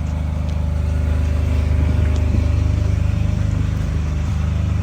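An engine running steadily at an even low speed.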